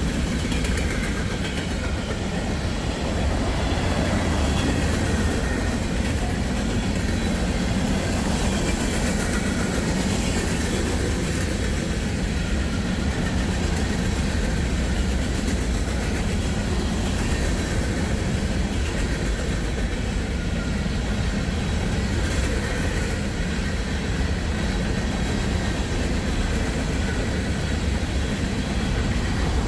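Norfolk Southern freight train's tank cars rolling past, a steady rumble of wheels on the rails.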